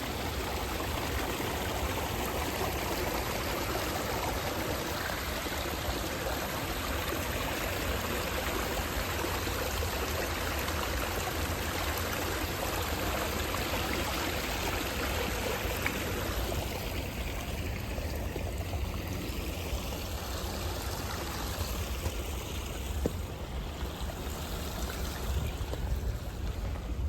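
Running water of a stream, a steady rushing wash whose higher hiss thins out about two-thirds of the way through.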